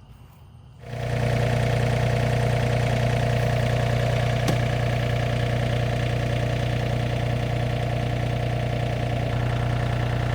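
Tractor engine running steadily at a constant speed, a loud, even hum that comes in suddenly about a second in.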